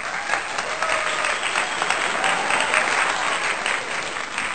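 Crowd applause, dense rapid clapping that starts and cuts off abruptly, a canned applause sound effect.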